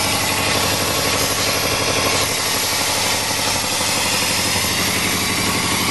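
1987 Chevrolet pickup's engine idling roughly and shaking as it misfires, with a big sucking sound from the open intake, which has no air cleaner fitted.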